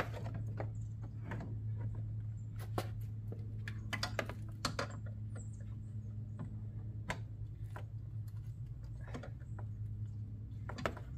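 Hands working on a van's plastic front grill and trim panel: scattered clicks, taps and knocks of plastic over a steady low hum.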